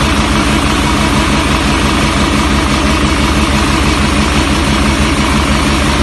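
Concrete mixer-pump machine's engine running steadily: a loud, even drone with a fast low pulse.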